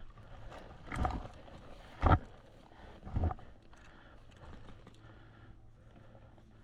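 Three heavy footsteps about a second apart, the middle one the loudest.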